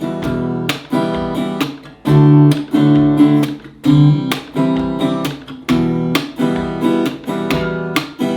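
Acoustic guitar strummed in E minor in a steady campfire pattern, with percussive slaps where the strumming hand drops flat onto the strings on beats 2 and 4, standing in for a snare drum.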